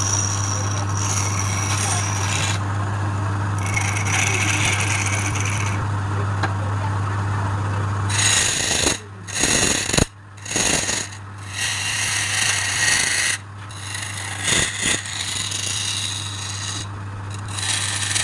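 Wood lathe running with a steady hum while a tool or abrasive scrapes the spinning workpiece. The scraping is fairly continuous at first, then from about halfway through comes in short passes with brief breaks.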